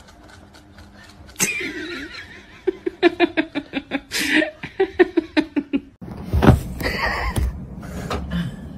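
A person laughing in quick repeated bursts, starting about a second and a half in and running on for several seconds. About six seconds in the sound changes abruptly to low rumbling handling noise with a few knocks.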